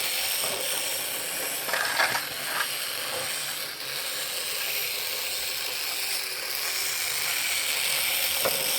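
Small electric motor and plastic gear train of a 1960s Marx battery-operated bump-and-go Dalek toy running steadily, its drive wheel spinning, with a whirr and a few clicks about two seconds in and again near the end.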